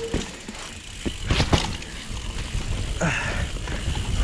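Mountain bike rolling down a rough dirt trail: a steady low rumble of tyres and wind on the microphone, with knocks and rattles from the bike over bumps, loudest about a second and a half in, and a brief hiss near the end.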